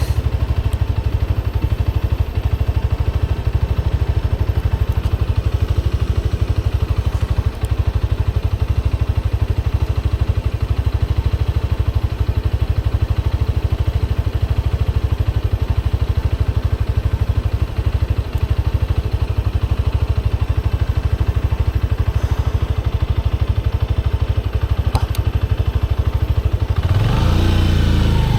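Motorcycle engine running steadily at low revs with a dense, even low pulsing, its sound shifting about a second before the end.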